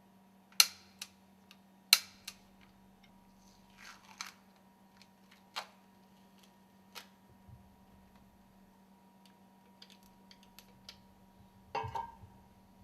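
Sharp metallic clicks and clinks of hand tools on the bolts of the stuffing box housing as they are tightened: two loud ones in the first two seconds, a few fainter ones spread through the middle, and a short rattle of several near the end. A faint steady hum runs underneath.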